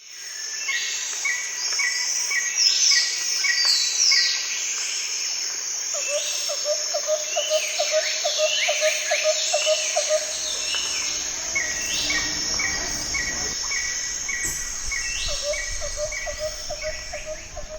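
A chorus of many birds calling over a steady high insect drone: repeated downward-gliding calls, rows of short evenly spaced notes, and a fast low pulsing trill that comes and goes. A low rumble joins about halfway through.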